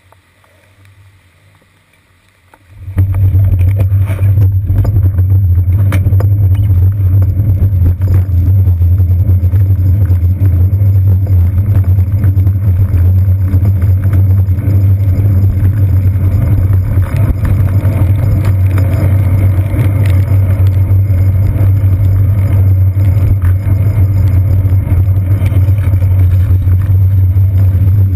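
Low, steady, loud rumble picked up by a seat-post-mounted GoPro Hero 2 as the bicycle rides along wet city streets: road vibration and wind on the camera. It starts suddenly about three seconds in, after a few seconds of faint, muffled street noise while the bike stands still.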